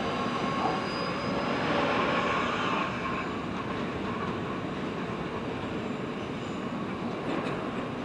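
Southeastern Class 465 Networker electric train pulling away, its wheels running on the rails with a faint whine. It is louder for about the first three seconds, then settles to a steadier, quieter run.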